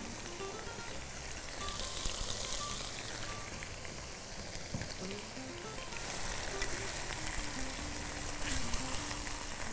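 Chicken escalopes and sliced onion sizzling steadily in hot oil in a wok.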